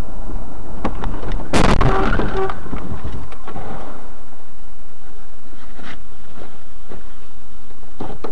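Car collision heard from inside the dashcam car: a loud crash about a second and a half in, lasting about a second. The steady road rumble then dies away as the car comes to a stop, leaving a few faint knocks.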